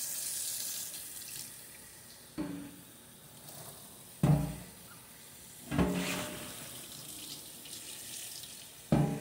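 Kitchen sink tap running water over a silver tray for a second or so, then easing off, with a few sharp knocks in the sink, the loudest about four seconds in.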